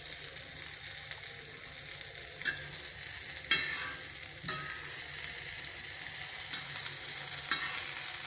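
An egg-coated tikki sizzling steadily as it fries on a flat griddle. A metal spatula scrapes against the pan a few times as the patty is pushed and turned.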